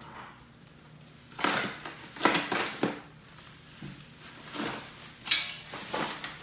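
Clear plastic wrap around a radiator crinkling as it is pulled and handled by hand, in several short bouts, loudest around two seconds in.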